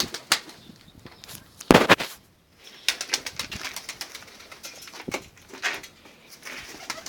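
Domestic pigeons moving close by: a loud flutter of wings about two seconds in, with scattered light taps and scuffles on the concrete floor.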